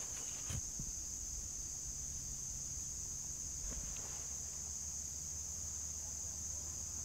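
Insects trilling steadily at a high pitch, with a couple of faint soft knocks.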